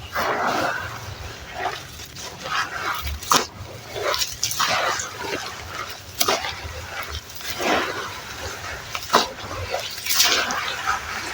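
Gritty red sand and charcoal being crumbled and squeezed in foamy water: irregular wet crunches and squelches about once a second, with a couple of sharper cracks.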